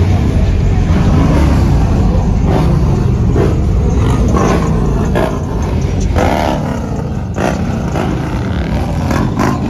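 A motor vehicle's loud, steady low rumble, with a few short sharp sounds in the second half.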